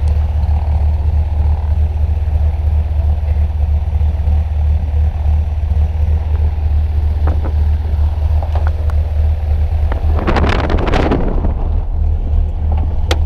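Single-engine light aircraft's piston engine idling on the ground with its propeller turning: a steady loud low hum. About ten seconds in there is a brief loud rush of wind and rustle on the microphone, and a few sharp clicks near the end.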